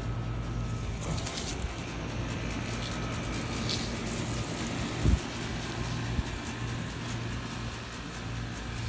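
An engine running steadily with a low hum, and a single thump about five seconds in.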